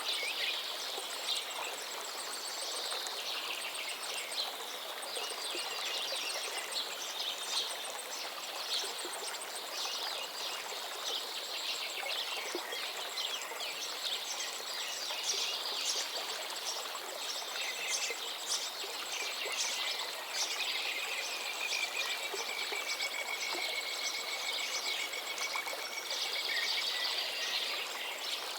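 Many birds chirping and singing in quick, overlapping calls over the steady rush of flowing water. A thin, high, continuous trill runs underneath, and one long drawn-out note sounds in the last third.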